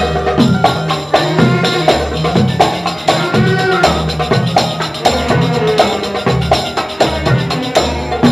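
Instrumental interlude of a Gulf song: a violin section plays the melody over percussion that keeps a steady, regular beat.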